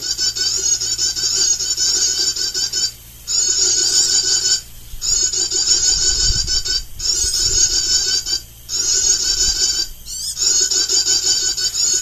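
Bird lure calls played back through a small speaker to attract birds to birdlime sticks: a dense, rapid, high-pitched twittering loop. It cuts out briefly every second or two and then starts again.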